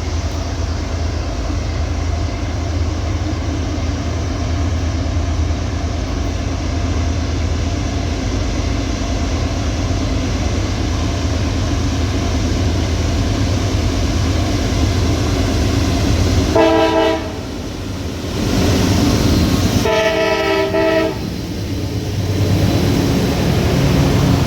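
Loaded coal train rolling past: a steady low rumble of heavy freight cars on the rails. Twice, about two-thirds of the way in and again a few seconds later, a locomotive's multi-note air horn sounds briefly over the rumble.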